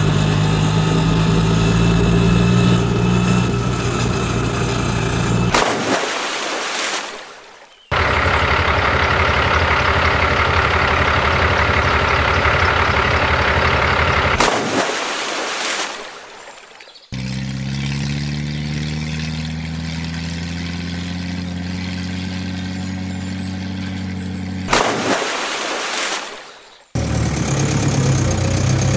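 Vehicle engine sound running at a steady pitch in three long stretches, each cutting in suddenly. Each stretch ends in a brief noisy crash that fades into a second or two of quiet. In the third stretch the engine note climbs and then holds steady, like an engine starting and settling to idle.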